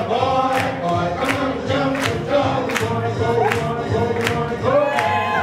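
Swing jazz music with a steady beat and a sung melody.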